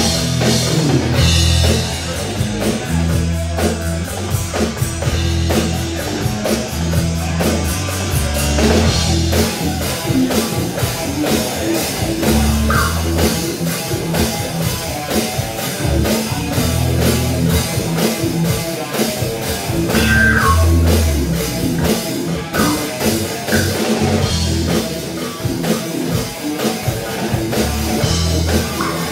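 Live rock band playing an instrumental passage without singing: electric guitar over bass guitar and a drum kit keeping a steady beat.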